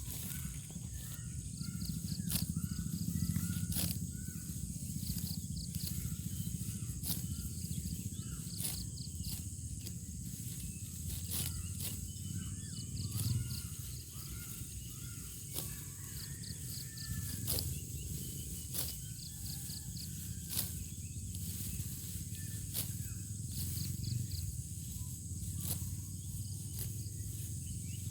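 Rice stalks being cut by hand in a paddy, sharp snaps every second or two. Underneath are a low wind rumble on the microphone and insects chirping in quick pulses.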